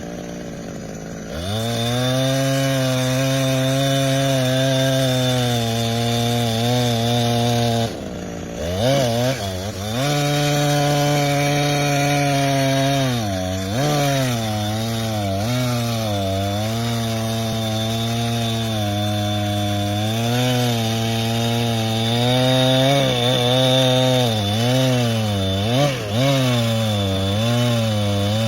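Two-stroke chainsaw cutting wood under load. Its engine pitch wavers and sags as the chain bites, picks up a moment after the start, and dips briefly twice before settling back into the cut.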